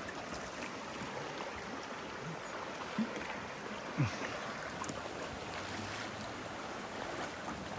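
Steady rush of fast-moving floodwater, with two brief sharper sounds about three and four seconds in.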